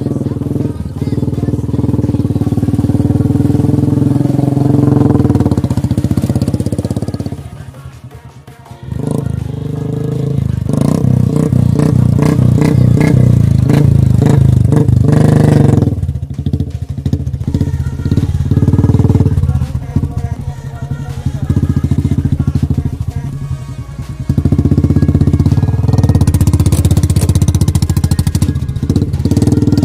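Royal Enfield Classic 350's single-cylinder engine running and revving as the bike churns slowly through deep mud and water. The sound drops briefly about eight seconds in.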